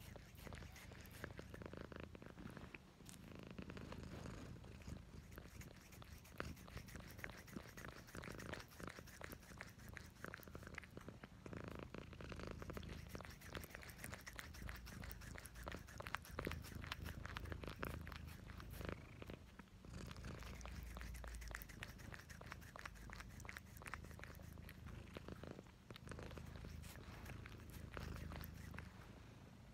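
Domestic cat purring close to the microphone, a steady low rumble, with many small wet clicks from its tongue licking an ice cream bar.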